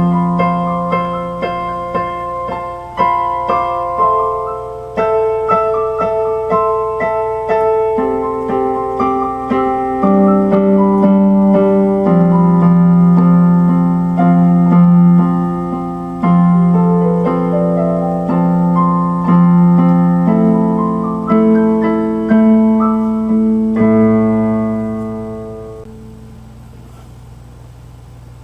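Keyboard music, piano-like notes playing chords and a melody, which fades out near the end leaving a faint low hum.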